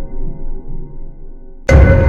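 Background music: a dark, ambient piece with steady held tones over a pulsing low beat. It thins out and drops, then comes back suddenly and loudly about one and a half seconds in.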